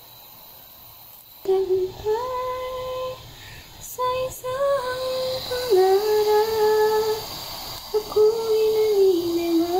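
A high voice singing a slow tune in long held notes, starting about a second and a half in, over a faint steady hiss.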